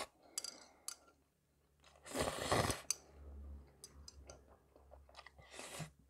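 Close-up eating sounds over a plate of instant noodles with bacon: two short noisy mouth sounds, about two seconds in and near the end, between soft chewing and light clicks.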